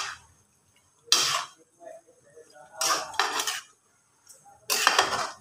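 Spatula scraping and stirring thick rendang in a stainless steel frying pan: three short scrapes of metal on the pan, about a second and a half apart.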